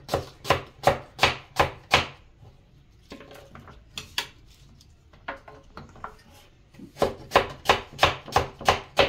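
Crinkle-cut potato cutter chopping through a potato onto a wooden cutting board: sharp knocks about three a second in a run over the first two seconds, a few weaker ones in a quieter middle stretch, and another quick run near the end.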